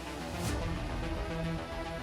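Background music with held notes and a single crash-like hit about half a second in.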